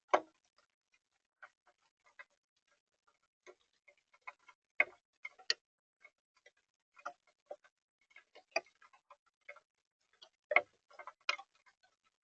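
Scattered, irregular sharp taps and clicks close to a Birdfy feeder camera, some loud and many faint, with no steady hiss between them.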